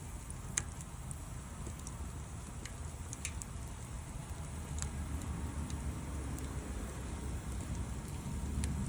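Wood fire crackling, with scattered sharp pops every second or so over a low rumble that grows louder toward the end.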